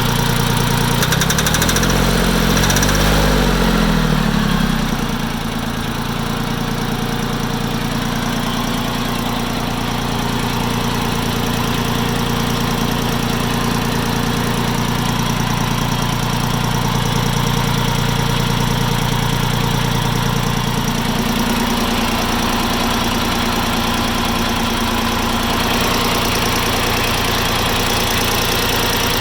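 Farm Pro 2425 tractor engine running with a knock, the knock that sets in once the engine has run 5 to 10 minutes from a cold start. The engine speed changes briefly a second or so in and shifts again about three quarters of the way through.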